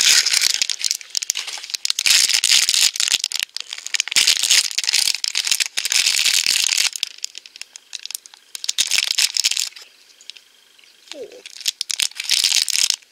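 Foil blind-bag packaging crinkling as it is pulled from its cardboard box and torn open by hand, in several spells of crackling with short pauses between them.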